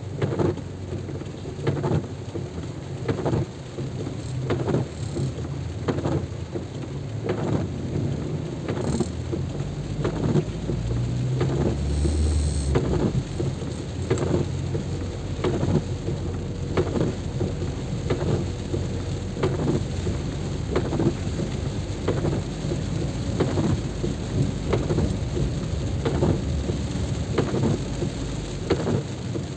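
Heavy rain falling, with many irregular sharp drop impacts over a steady low rumble; the rumble swells briefly about twelve seconds in.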